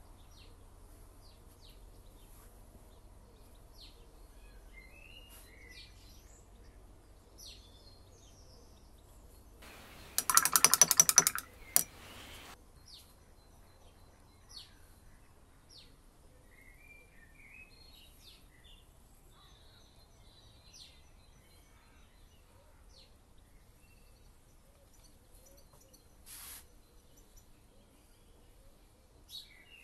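Faint birdsong, scattered chirps and short calls, over a low steady hum. A little after ten seconds in, a loud, rapid rattle of clicks lasts about two seconds.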